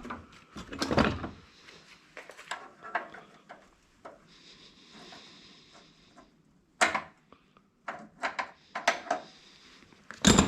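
Scrap parts being handled on a workbench: scattered clicks and knocks of small hard pieces, with a short scraping hiss about halfway through.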